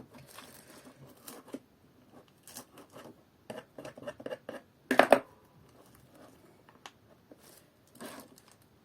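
Hands working with bouquet materials: rustling and crinkling with scattered small clicks, a sharp click at the start and a louder rustle about five seconds in.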